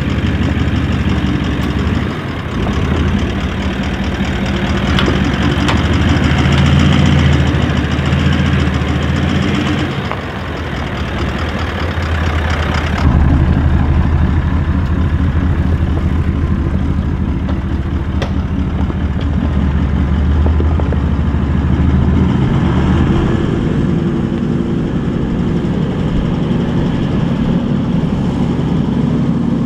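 Toyota LandCruiser 76's engine running steadily at low revs as it crawls over a deeply rutted, washed-out dirt track. The sound changes suddenly about a third of the way in.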